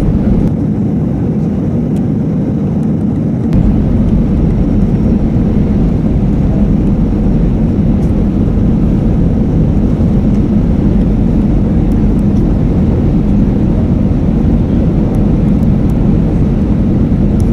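Airbus A320 cabin noise heard from a passenger seat: steady engine and airflow noise with a strong low hum. The deepest part of the sound thins briefly just after the start, then the noise steps up a little about three and a half seconds in and holds steady.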